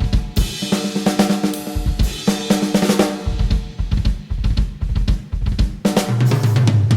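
Drum kit played in a dense, fast improvised pattern of snare, bass drum, hi-hat and cymbal hits. A sustained low tone enters about six seconds in.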